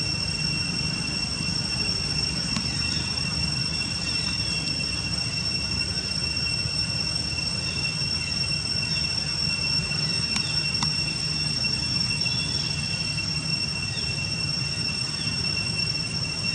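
Steady outdoor ambience: a low rumble with a constant high-pitched whine held on one pitch, and a few faint short chirps and ticks.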